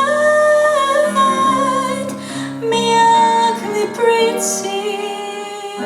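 Song: a woman sings long held notes with vibrato over instrumental accompaniment.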